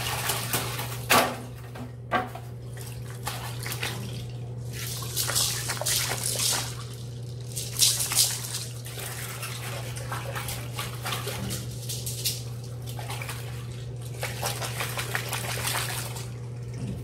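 Water sloshing and splashing in short irregular bursts over a steady low hum, with a sharp knock about a second in and another near the middle.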